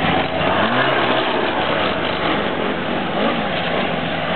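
Ski-Doo snowmobile engines running, with one revving up in rising pitch about half a second in.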